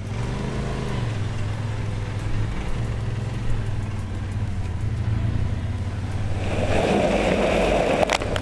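Off-road vehicle engine running steadily with a low hum. Near the end a louder rushing noise swells as a tyre throws mud, broken by a sharp click.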